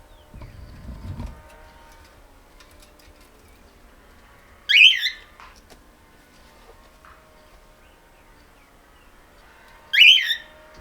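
Cockatoo giving two short, shrill squawking calls about five seconds apart, each sweeping up and down in pitch. A brief low rumble comes near the start.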